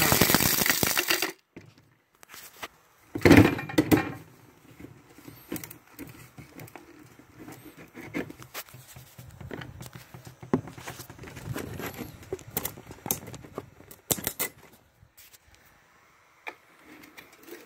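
Krups electric coffee grinder, fitted with metal brackets in place of its blades, grinding turquoise into powder; the noise cuts off suddenly about a second in. Then a loud knock about three seconds in, followed by scattered light clicks and taps as the grinder and its lid are handled.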